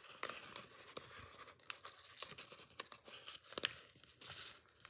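A sheet of origami paper rustling and crinkling as it is folded and creased by hand, with many sharp little crackles from the creases.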